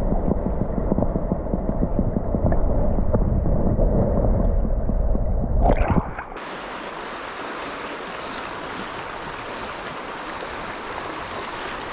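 River water heard with the microphone held underwater: a muffled, low rumbling gurgle of flowing current. About six seconds in it cuts suddenly to the open-air rush of the stream, a steady, brighter hiss.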